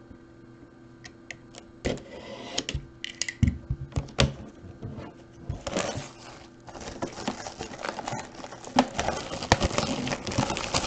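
Plastic shrink-wrap on a cardboard trading-card box being slit with a box cutter and torn off: scattered clicks and taps at first, then from about halfway on a steady crinkling and crackling of plastic.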